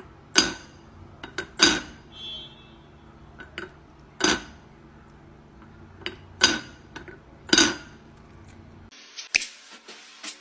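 Lid of a black teapot clinking against the pot as a cat paws at its knob: five sharp clinks with a short ring a second or two apart, and smaller taps between them.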